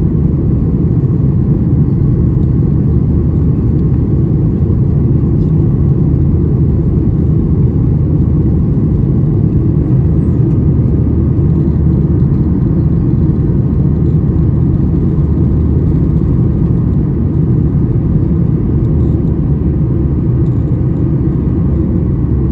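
Steady low rumble of a Boeing 737-800's CFM56-7B turbofan engines and rushing air, heard from inside the passenger cabin over the wing while the airliner climbs after takeoff.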